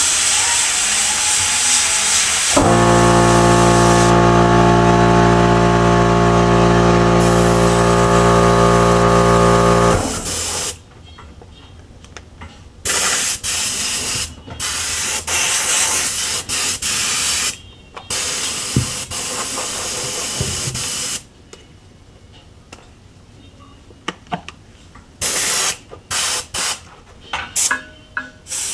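Airbrush spraying with a hiss, at the start and then on and off in short bursts through the second half. From about 3 to 10 seconds in, a small compressor motor runs with a steady hum.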